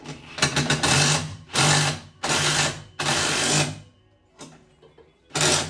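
Cordless impact driver running in about five short bursts, the first with a few stuttering starts and the last near the end, hammering as it drives screws.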